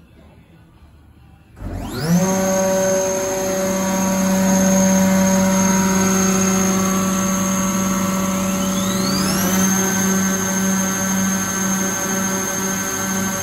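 Weinig U300 planer-moulder starting up: about one and a half seconds in, its motors and cutter spindles spin up with quickly rising whines and then run on in a steady, loud, multi-toned whine. About eight seconds in, another spindle spins up, its whine gliding upward for about a second before levelling off.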